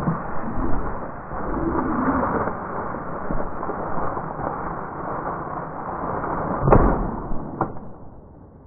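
Steady rustling of dry cattails and grass being pushed through, with a sharp knock about two-thirds of the way through and a smaller one a second later, then fading near the end.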